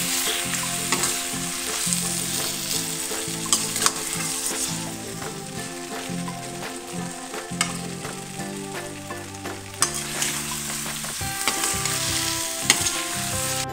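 Stuffed eggplant in masala sizzling in a steel kadai while a metal spatula stirs and scrapes it around the pan, with scattered clinks of the spatula on the steel. The dish is fully cooked and is getting its last stirs over the flame.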